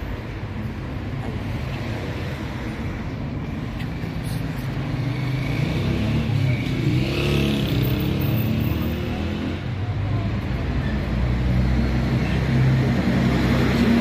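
Street traffic: motor vehicle engines running close by, growing louder about halfway through.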